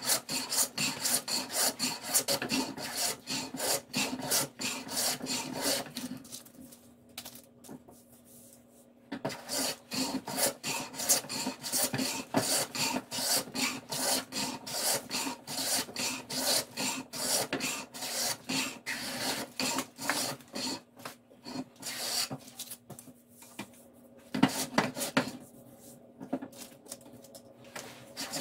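Hand plane shaving the top edge of a wooden vise jaw, a rapid series of short rasping strokes with a pause of a couple of seconds about a quarter of the way through.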